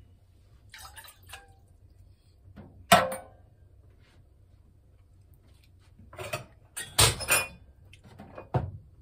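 Stainless steel cookware clanking at a kitchen sink: a short pour of water into a saucepan, then a sharp ringing clank as a small metal measuring cup is set down in the steel sink about three seconds in. Several more knocks and clatters of pots follow in a cluster, with one more knock near the end.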